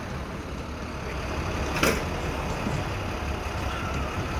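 Low, steady rumble of road traffic and vehicle engines, with one sharp knock a little under two seconds in.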